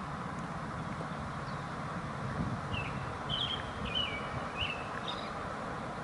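Eastern kingbird giving a quick string of short, high call notes, about six in two seconds around the middle, over a steady low background noise.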